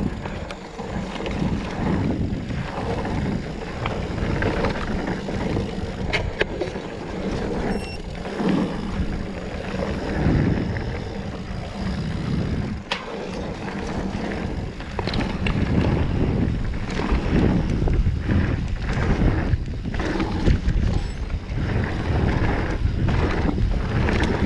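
Mountain bike riding fast down a dirt trail: tyres rumbling over the dirt and the bike rattling, with wind buffeting the action camera's microphone and a few sharp knocks along the way.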